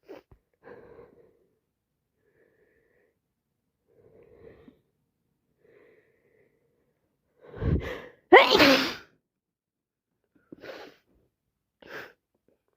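A woman sneezing from a bad cold and allergies: quiet breaths, then a sharp intake of breath and one loud sneeze about eight seconds in, followed by two brief, quieter sounds.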